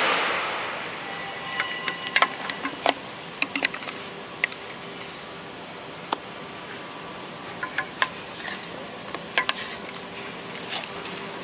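A wooden stick stirring and scraping wet fruit pulp in a stainless steel basin, with scattered sharp clinks and knocks against the metal. A wet rush of pulp pouring from a steel drum is loudest right at the start and fades over the first second.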